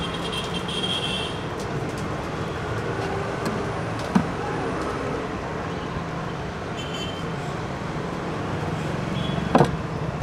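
Steady street traffic noise, with two sharp knocks, one about four seconds in and one near the end.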